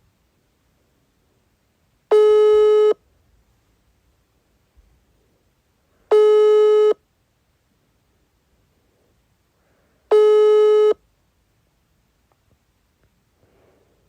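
Russian telephone ringback tone, the signal to the caller that the called phone is ringing: a steady mid-pitched tone just under a second long, sounding three times, four seconds apart.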